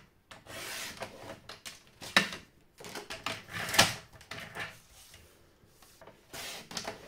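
Sheet of card stock rustling and sliding across a plastic paper trimmer as it is turned and lined up, with two sharp taps about two and four seconds in.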